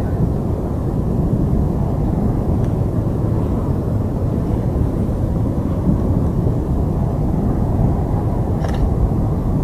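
Loud, steady low rumbling noise with no distinct events, and a faint brief tick near the end.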